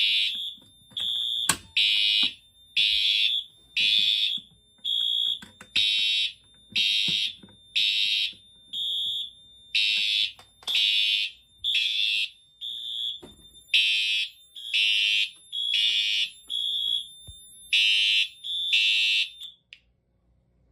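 Fire alarm horn strobes, a Siemens and a Wheelock MT, sounding in loud blasts about once a second after a pull station has been pulled. They cut off suddenly near the end as the panel is reset.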